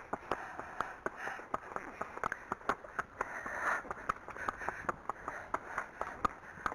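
Horse's hooves at a walk on a wet track: a steady run of sharp clip-clop footfalls, about three to four a second.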